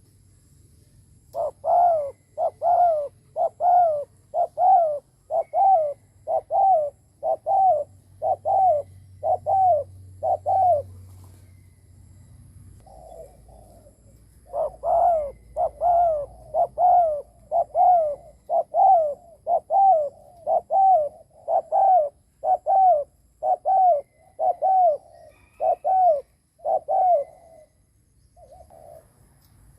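Spotted dove cooing, the quick 'gù' coo of a decoy bird used to provoke wild males: a long run of short coos, about two a second. The run breaks off for about two seconds near the middle, then carries on.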